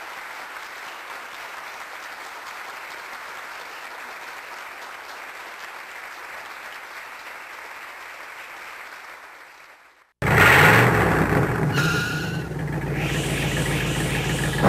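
Audience applause, steady, fading out about nine to ten seconds in. After a brief silence, a loud vehicle engine starts up and runs, revving up near the end.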